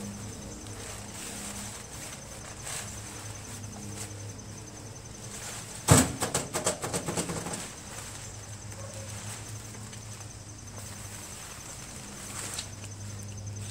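A sharp knock about six seconds in, followed by a quick rattling clatter that dies away over a second or so. Under it runs a steady low hum and a faint, even high chirping.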